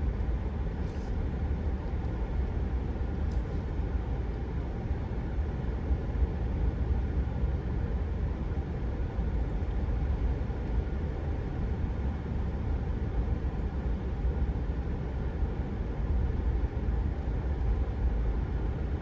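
Steady low rumble of a pickup truck driving slowly: engine and tyre noise with no change in pace.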